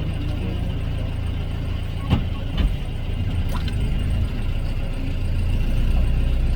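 Safari vehicle's engine idling with a steady low rumble, growing a little louder near the end. Two or three sharp knocks come about two to three and a half seconds in.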